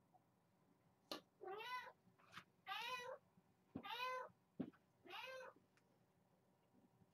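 Kitten meowing four times, each call rising then falling in pitch, with a few light knocks between the calls.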